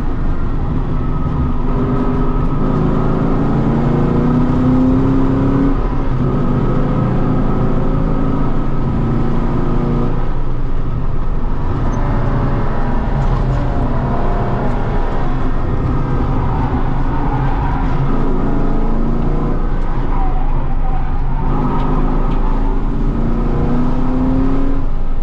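Holden Commodore VE SS ute's 6.0-litre V8 under hard driving: the engine note climbs with revs, drops back at each gear change or lift, and climbs again, over and over.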